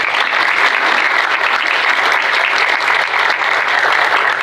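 Audience applauding: many hands clapping, steady and loud.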